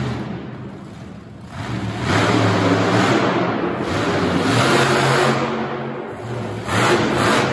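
Monster truck engine revving hard in two surges, a long one from about two seconds in and a shorter one near the end.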